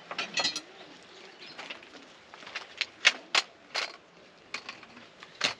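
Heavy raindrops dripping irregularly onto a hard surface: a scatter of sharp taps of varying loudness, the loudest about three seconds in, over a faint hiss of light rain.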